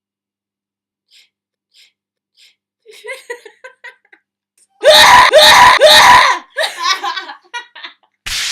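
Women laughing hard: a few quiet breathy sounds, then three loud bursts of laughter about half a second apart around the middle, trailing off into more laughter, with a short hissing burst at the very end.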